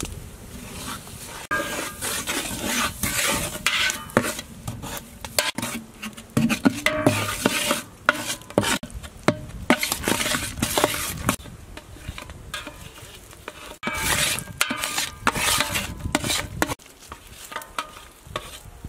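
A metal spoon stirring and scraping around an aluminium pot, with irregular strokes and clinks against the metal, over a bubbling brown sauce that sizzles. The stirring comes in busy spells with quieter gaps between them.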